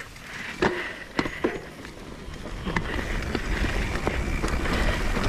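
Mountain bike riding down a dirt singletrack: a few sharp knocks and clatters as it goes over bumps in the first second and a half, then a steady rumble of tyres on dirt with rattling from the bike that grows louder about halfway through as it picks up speed.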